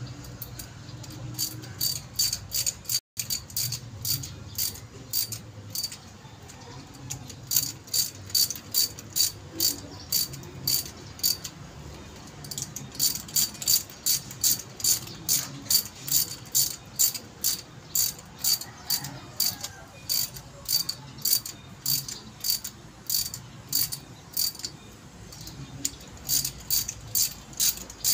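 Ratchet wrench being worked on a bolt of a car's steering box: a long run of sharp, even clicks, about two to three a second, in spells broken by short pauses, louder from about eight seconds in.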